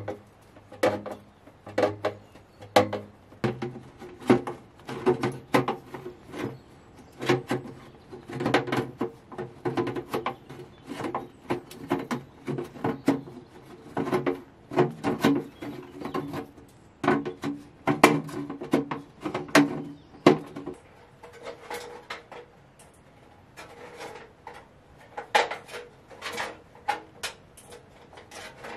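Pliers and a hooked iron tool clinking and scraping against a copper pipe cover, with irregular knocks about one or two a second and the copper ringing between them. The knocks get lighter and sparser about two-thirds of the way through.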